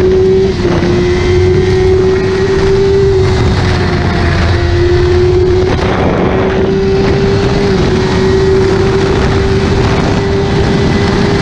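Sport motorcycle engine held at high revs at over 200 km/h, its steady high note creeping slightly upward as the bike gains speed, with two brief dips in pitch, about half a second in and near eight seconds. Wind rushes heavily over the microphone underneath.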